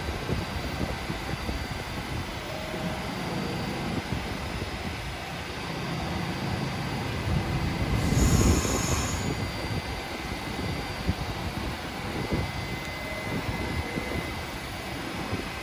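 New York City subway train running on the rails with a steady rumble, and a brief, louder high squeal of the wheels about eight seconds in.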